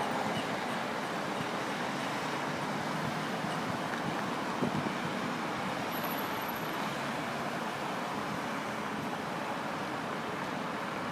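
Steady road traffic noise, with cars and vans passing on the street.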